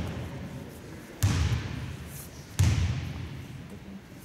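A basketball bounced twice on a wooden sports-hall floor, slow deliberate bounces about a second and a half apart, as a player's routine at the free-throw line before the shot. Each bounce is a low thud that rings on briefly in the hall.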